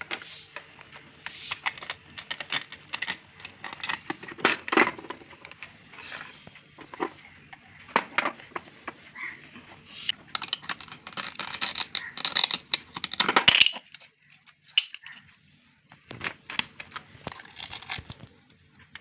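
Hands handling a plastic toy fruit-and-vegetable set and its packaging: crinkling, tearing and sharp clicks of plastic. It is busiest about two-thirds of the way through, goes quiet briefly, then the clicks resume.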